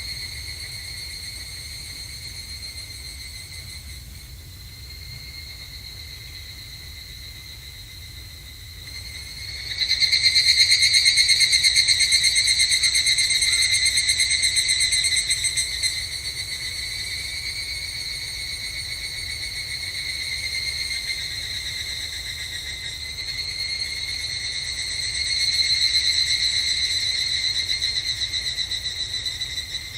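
Higurashi (evening cicadas) calling: a high, rapidly pulsing ringing trill. One call swells loud about ten seconds in and fades, and another swells near the end.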